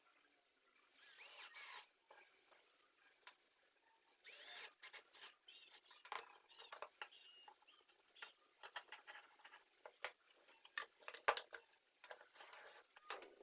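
Faint workshop handling sounds: scattered clicks and light knocks, with a few brief scrapes, from tools and metal and wooden parts being worked by hand.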